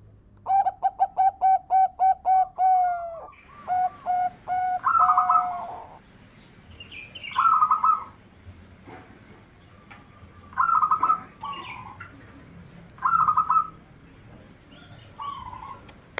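Zebra dove (perkutut) singing: a rapid run of about nine staccato coos, then a few more notes, followed by short separate cooing phrases every two to three seconds.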